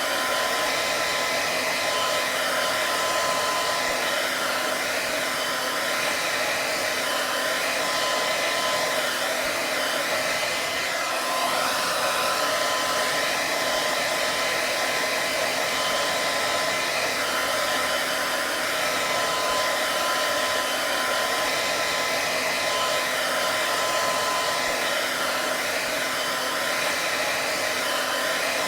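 Hair dryer running steadily: an even rush of blown air with a faint, steady whine from its motor.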